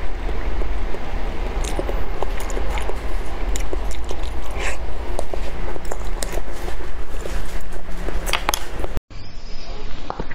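Close-miked wet mouth sounds of eating a soft jelly sweet on a stick: chewing and sucking, with many small smacks and clicks over a steady low hum. Near the end the sound cuts out for an instant and a different recording of mouth sounds begins.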